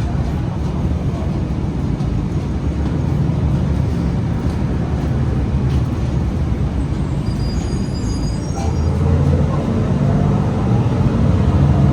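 Inside a moving bus: steady engine and road rumble, with the engine note rising about nine seconds in as it speeds up.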